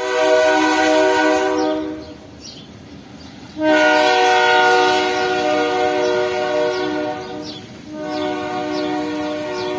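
Freight diesel locomotive's air horn sounding a steady chord in three blasts: one of about two seconds, then after a short gap a longer blast of about four seconds, and a third starting near the end.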